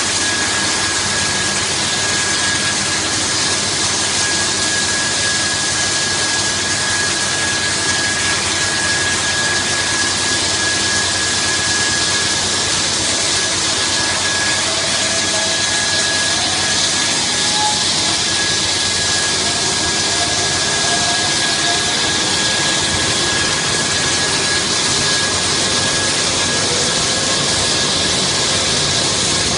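Christ C100 rollover car wash running: spinning brushes and water spray working over a car, a loud steady rush with a constant high whine.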